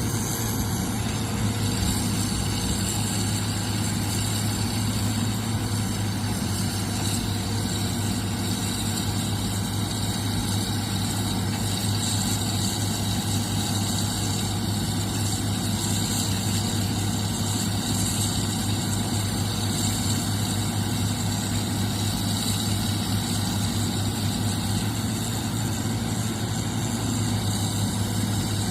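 Heavy machinery's diesel engine running at a steady speed, a constant low hum.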